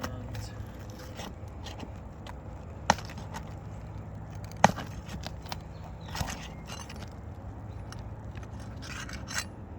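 Pry bar working a roofing nail out from under asphalt shingles: scattered scraping and clicking, with two sharp knocks about three and four and a half seconds in, the second the louder.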